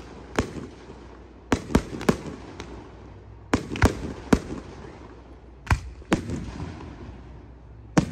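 Aerial firework shells bursting in the sky: about ten sharp bangs in irregular clusters of two or three, with a short echo after each.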